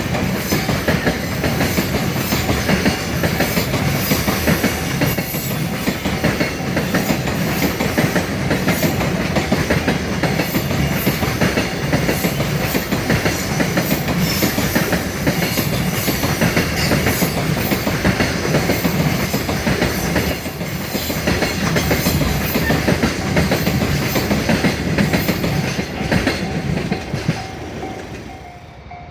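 Freight train passing close by, a long run of wagon wheels clattering over the rail joints, dying away near the end as the last wagons go past.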